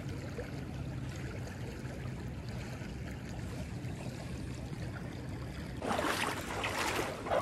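Shallow creek water flowing steadily over rocks. About six seconds in, a louder rushing noise joins it for a second or so.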